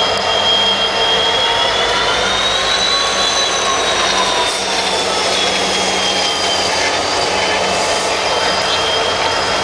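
SOO Line EMD SD60 diesel-electric locomotives, with 16-cylinder two-stroke engines, passing slowly at close range. The engines run with a loud, steady high whine that rises a little and falls again about three seconds in, over a low hum.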